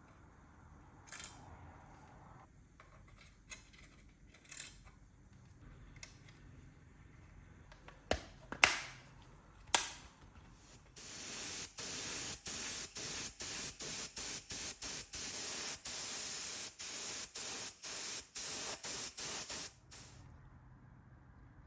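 Paint spraying: a steady hiss of about nine seconds, broken by many brief gaps, that stops suddenly near the end. Before it come scattered clicks and knocks of handling, three of them louder.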